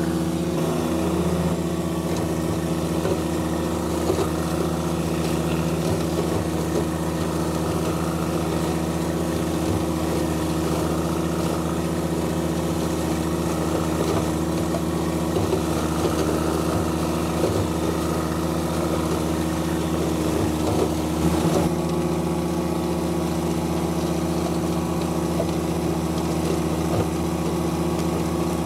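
John Deere 1025R compact tractor's three-cylinder diesel engine running at a steady speed while mowing. The pitch dips briefly about a second in, and there is a short burst of noise near 21 seconds.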